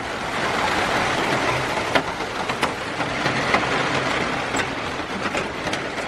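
Derecho wind gust with driving rain, a loud rushing noise that builds over about the first second and then holds, with scattered sharp taps of rain or debris striking.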